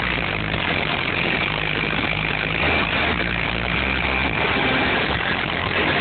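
Car audio system with sixteen 12-inch subwoofers playing loud bass notes that shift every half second or so.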